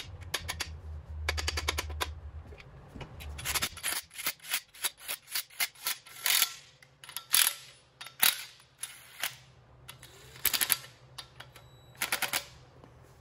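Sharp metal clinks and knocks of main bearing caps and cap bolts being set on an engine block, with quick runs of ratchet clicking as the cap bolts are run down.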